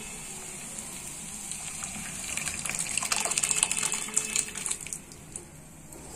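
Boiled chana and urad dal poured into a hot pan of fried onion-tomato masala, the liquid gushing and splashing. It is loudest from about two to five seconds in, then dies down.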